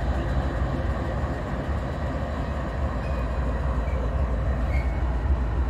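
Several Norfolk Southern diesel-electric freight locomotives passing close by, their engines giving a steady low rumble.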